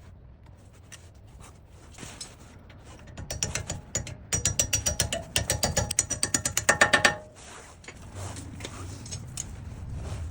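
Hand ratchet wrench clicking in a quick run of about six clicks a second for roughly four seconds, starting about three seconds in.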